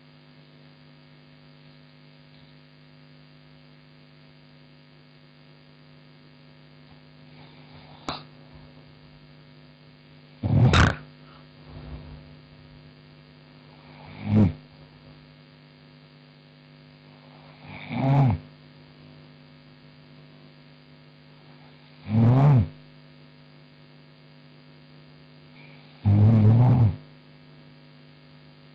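A woman snoring in her sleep: five loud snores about every four seconds, beginning about ten seconds in, each lasting under a second. A steady electrical mains hum runs underneath.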